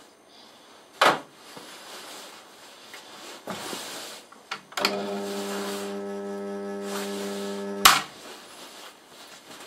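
A knock about a second in, then the drill press's electric motor runs with a steady hum for about three seconds and cuts off with a sharp click. The small bit is jammed in the vise and the loosely tensioned drive belt slips, so the chuck does not turn.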